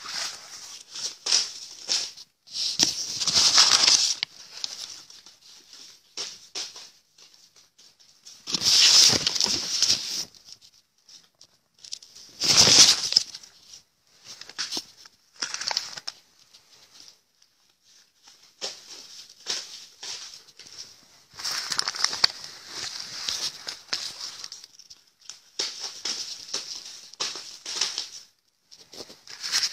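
Paper banknotes rustling and crinkling in irregular bursts as handfuls of notes are scooped up from a loose pile and let fall back onto it. The loudest bursts come about a third of the way in.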